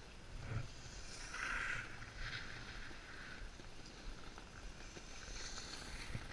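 Edges sliding and scraping over packed piste snow on a downhill run, in a few swishes about a second in and again near the end, over a low rumble of wind on the microphone.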